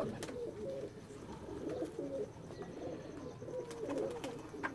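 Domestic pigeons cooing, several wavering calls overlapping, with a single sharp click near the end.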